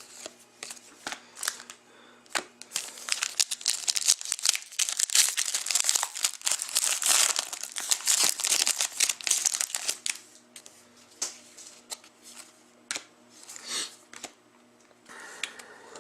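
Crinkling of a trading-card pack wrapper or plastic as cards are handled, dense for several seconds, then dying down to scattered rustles and light clicks.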